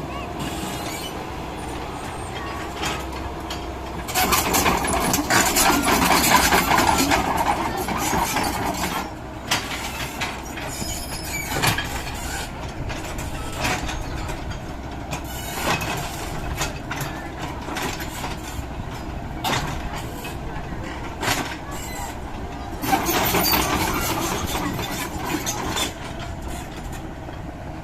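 Hydraulic excavator at work: a steady engine hum, rising louder for several seconds twice, with scattered metallic clanks.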